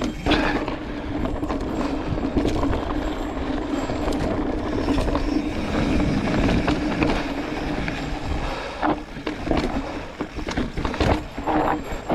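Mountain bike rolling downhill on a dry dirt trail: tyres crunching over dirt and stones with rushing wind noise and a steady mechanical buzz from the bike. About nine seconds in, the buzz breaks up and sharp knocks and rattles follow as the bike goes over bumps.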